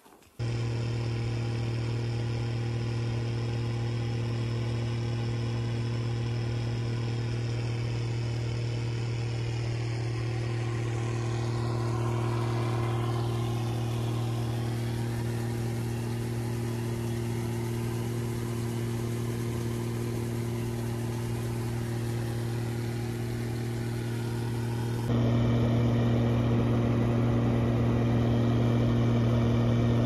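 Massey Ferguson 860 combine's diesel engine and threshing machinery running steadily at harvest, a constant engine hum. It gets suddenly louder about 25 seconds in.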